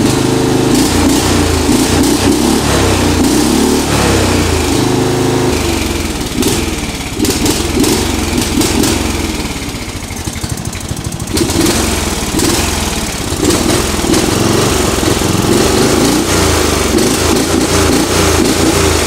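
Craftsman race mower's engine running at high speed through its new exhaust. It eases off to a lower speed about a third of the way in, then picks back up sharply and runs at high speed again.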